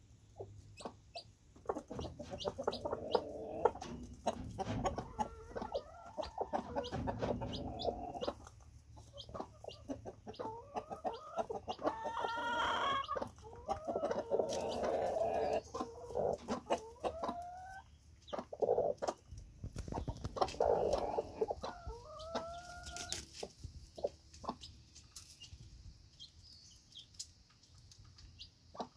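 Mother hen clucking softly and repeatedly, mixed with many short sharp taps of beaks pecking feed off a wooden ledge. A few short rising calls come in the middle.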